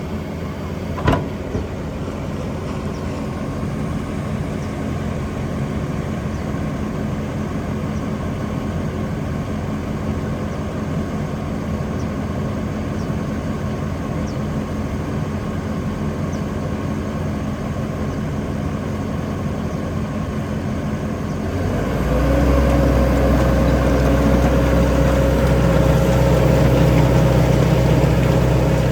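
Leeboy 8530 asphalt paver's Kubota diesel engine idling steadily, with a single sharp knock about a second in. About 22 seconds in the engine speeds up to a louder, steady run, and a steady higher tone joins it.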